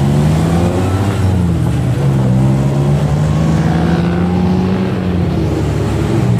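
Tuk-tuk engine running under way, heard from the passenger seat, its note rising and falling several times as the driver works the throttle, over road and wind noise.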